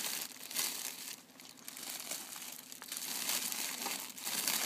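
Clear plastic flower sleeves crinkling and rustling as sleeved hydrangea bunches are handled and pressed into a cardboard box, in uneven bursts with a short lull about a second in.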